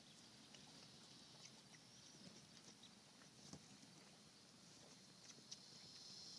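Near silence: faint outdoor background with a few scattered soft ticks and taps.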